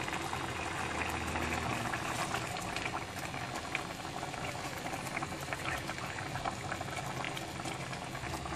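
Thai red curry in coconut milk boiling in a pan: a steady bubbling with many small pops.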